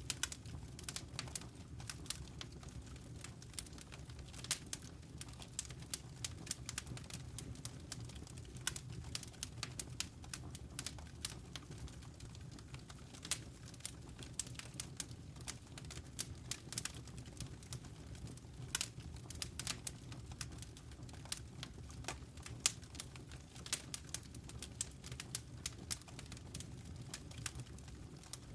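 Wood fire in a fireplace crackling, with many irregular sharp pops and snaps over a steady low rumble of burning.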